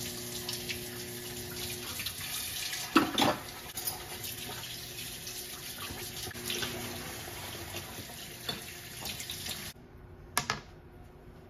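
Kitchen faucet running steadily into the sink, with a couple of sharp knocks; the water shuts off near the end.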